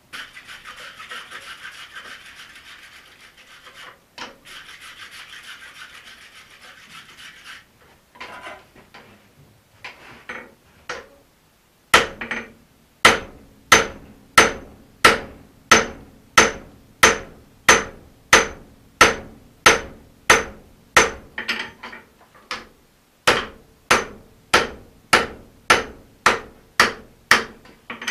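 Blacksmith's hand hammer striking a red-hot forged felling axe head on the steel anvil, working it to final shape. After a few light taps, the blows settle into a steady rhythm of about one ringing strike a second, with one short pause. The first seven seconds or so hold a steady scratchy noise before any blows.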